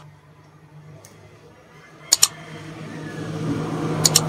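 Pairs of sharp computer-mouse click sound effects, one pair about every two seconds, from an animated like-and-subscribe button overlay. Under them runs a steady low hum, and a broad rushing noise swells up from about three seconds in.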